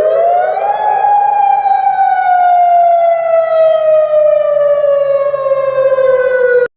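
Emergency-alert siren wail. The tone rises steeply for about a second, then falls slowly for about six seconds and cuts off abruptly near the end.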